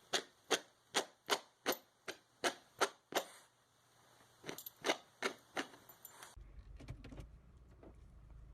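A regular series of sharp clicks or taps, about two or three a second. It pauses for about a second and then resumes briefly.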